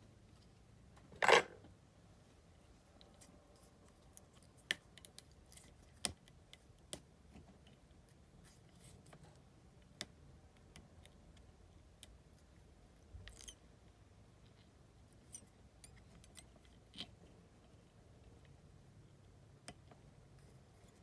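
Scissors snipping once about a second in, followed by scattered light clicks and taps of small tools and materials.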